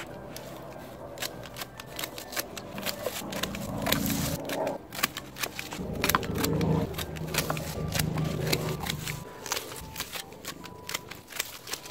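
Bypass pruning secateurs snipping through potato stems, a string of sharp clicks one after another. A low rumble comes and goes through the middle.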